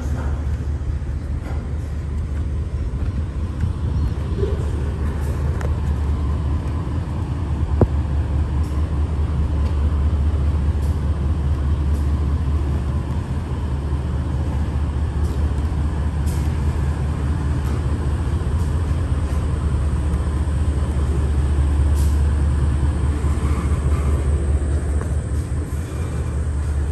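Diesel freight locomotive running steadily with a deep, pulsing drone that swells and fades slightly, with a sharp click about eight seconds in.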